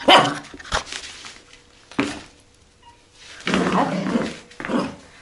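A puppy barking in short, sharp barks spaced a second or two apart, with a longer drawn-out bark about three and a half seconds in.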